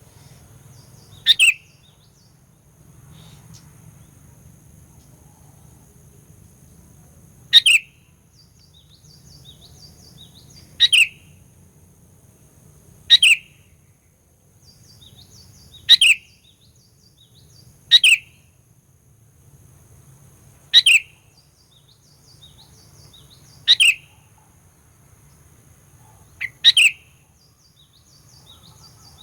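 Sooty-headed bulbul giving short, loud, downward-sweeping calls, one every two to six seconds, with faint softer chirps in between.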